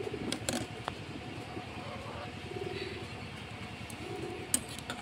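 Curry simmering in an iron wok over a wood fire, a steady low hiss, with a few sharp clicks and taps as a metal ladle stirs it.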